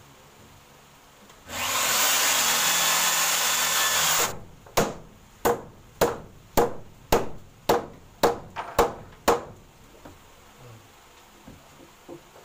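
A corded electric drill runs steadily for about three seconds, drilling. About half a second after it stops come nine sharp hammer blows at roughly two a second.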